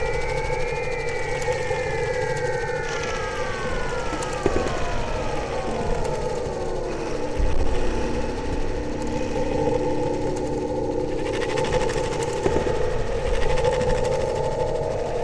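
Electronic noise drone from a Eurorack modular synthesizer: held droning tones over a low noisy rumble, with several gliding tones that rise and then sink slowly over the first six seconds or so.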